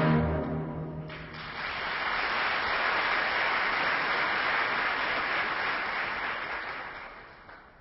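An orchestra's closing chord rings and breaks off about a second in, then an audience applauds steadily for some six seconds, fading out near the end.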